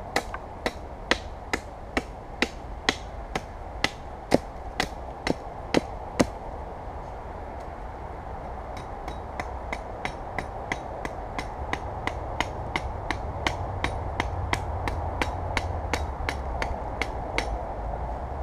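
Small hatchet chopping a seasoned wooden bow stave, about two sharp strikes a second, cutting away the belly wood of the bow. The strikes are louder for the first six seconds, then lighter, and they stop shortly before the end.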